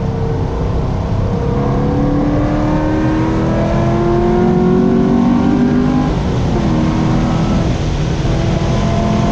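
Chevrolet Corvette C6 Z06's 7.0-litre LS7 V8 pulling hard at full throttle with its pitch climbing steadily. About six seconds in the revs drop suddenly, then the engine pulls again.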